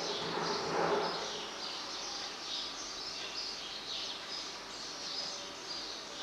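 Birds chirping over and over in the background, in short high calls. There is a soft rubbing rustle during about the first second.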